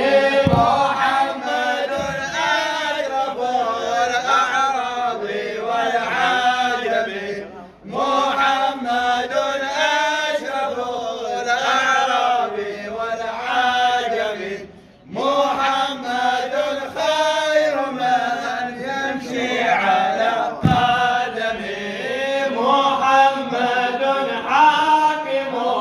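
Male radood voice chanting an Arabic jalwa/mawlid hymn in praise of the Prophet Muhammad, unaccompanied. It goes in long melodic phrases, with two short breaths about 8 and 15 seconds in.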